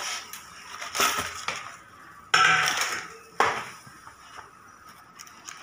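Stainless steel plates clattering as they are handled, with banana leaves crinkling. There are two sudden loud knocks, one about halfway through and another a second later.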